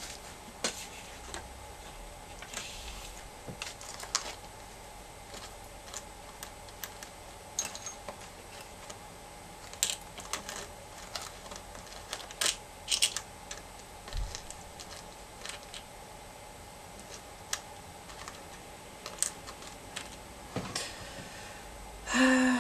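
Seashells clicking and clinking against one another as they are handled, picked up and set down among other shells, in light taps at uneven intervals.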